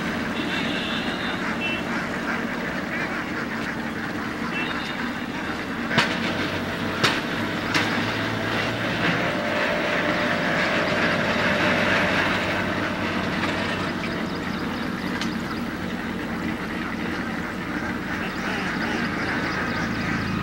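A large flock of domestic ducks quacking and chattering continuously as they feed in water, with three sharp clicks about six to eight seconds in and a steady low hum beneath.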